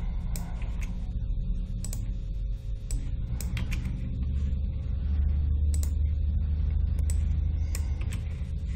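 Computer mouse clicks, a scattering of single clicks at irregular spacing, over a steady low hum.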